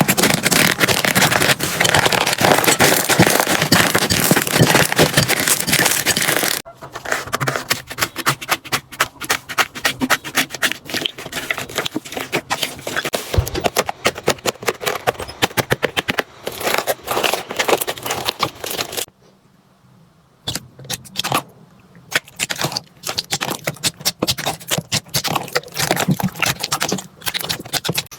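Slime being squeezed and worked by hand. For the first six seconds or so there is a dense crunchy crackling. It then turns into a long run of quick separate clicks and pops, with a short quiet gap about two-thirds of the way through.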